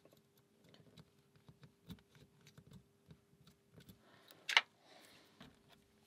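Faint metallic ticks and taps of Dangerfield lock picks being handled and worked at a padlock's keyway, with one sharper click about four and a half seconds in.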